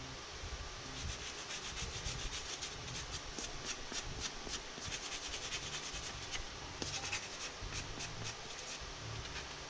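Hand-sanding with a sanding block: quick, even back-and-forth strokes rasping over Bondo spot putty filled into the seam lines of a helmet shell.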